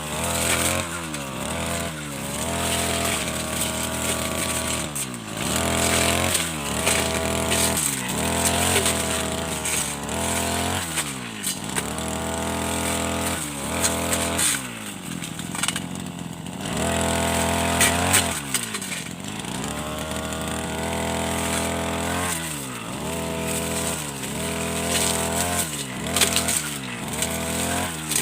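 Brush cutter engine revving up and down repeatedly, about every one to two seconds, as its blade cuts through tall senduduk shrubs. About halfway through it drops briefly toward idle before revving up again.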